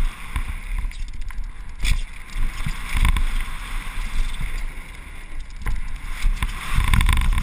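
Wind buffeting the camera's microphone over the rumble of a chainless Specialized Demo downhill mountain bike's tyres on dirt at speed. Several sharp knocks and thuds come through as the bike hits bumps and lands jumps, the loudest cluster near the end.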